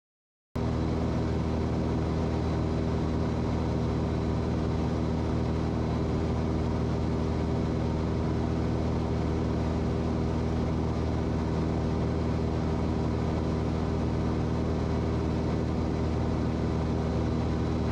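Cessna 182's piston engine and propeller running steadily at climb power just after takeoff, a constant drone heard from inside the cockpit. It cuts in suddenly about half a second in.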